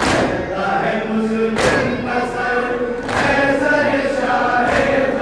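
Men chanting a nauha (Shia lament) together, with their hands striking their chests in unison about once every second and a half in the rhythm of matam.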